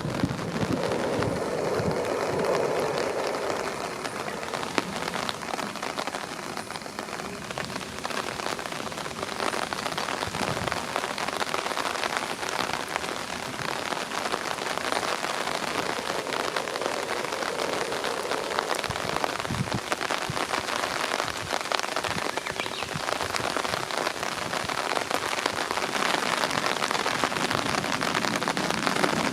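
Heavy thunderstorm rain falling: a steady hiss, thick with the ticks of individual drops.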